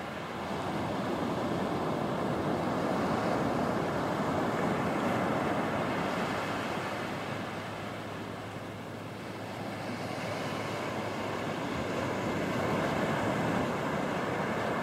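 Ocean surf breaking and washing up a sandy beach, swelling over the first few seconds, easing a little past the middle and building again.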